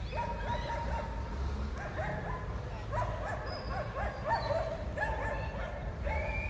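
A dog barking in repeated short, pitched yelps, over a steady low rumble.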